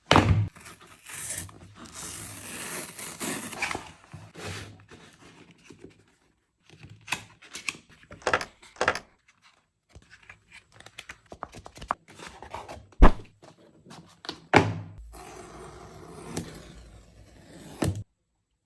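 Cardboard and paper packaging of an Apple Watch Ultra being opened and handled: scattered knocks and thunks, the sharpest about 13 seconds in, between stretches of sliding, scraping and tearing.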